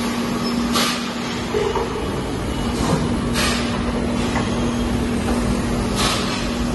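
Double rotary egg tray forming machine running with a steady mechanical hum, broken by three short hissing blasts of air about two and a half seconds apart: the compressed-air blow-off that releases the formed pulp trays from the molds.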